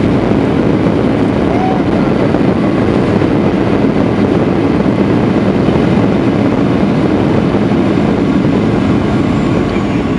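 Cabin noise of a Boeing 737-800 on its landing rollout: a loud, steady rumble of its CFM56 engines and runway roll, easing off near the end as the jet slows.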